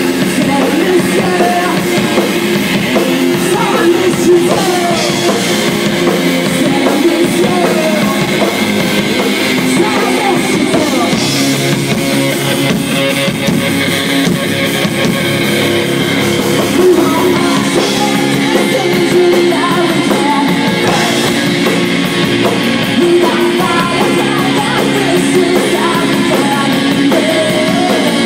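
Live rock band playing loud: guitars and a drum kit, with a male lead singer singing into a handheld microphone.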